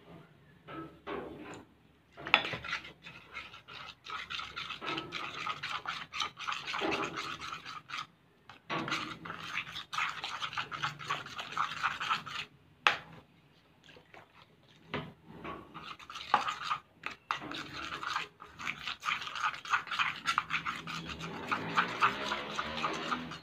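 A metal spoon stirring and scraping a mixture of PVA glue and borax activator in a bowl as it thickens into slime, in quick repeated strokes with a couple of short pauses.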